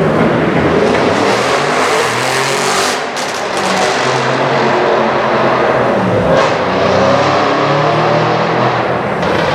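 Audi RS6 C7's twin-turbo V8 through a Milltek exhaust, running loud and revving up and down, with a short burst of exhaust crackles about three seconds in.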